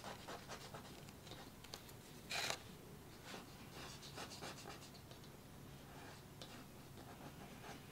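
Faint dabbing and scratching of a foam brush laying fluid acrylic paint onto sketchbook paper, with one louder scrape about two and a half seconds in.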